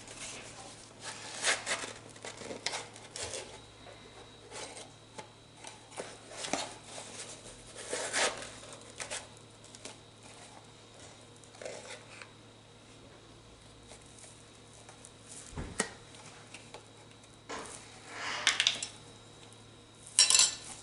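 Irregular clinks and scrapes of a measuring spoon against a container and bowl as baking soda is scooped out and measured.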